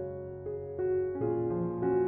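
Background music: a keyboard melody of held notes, a new note about every half second.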